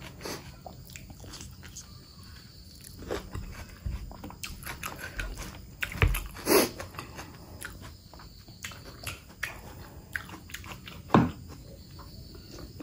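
Close-miked wet chewing and mouth smacking on mutton curry and rice, with sticky clicks of fingers working the food. There are a few louder smacks, one about halfway and one near the end.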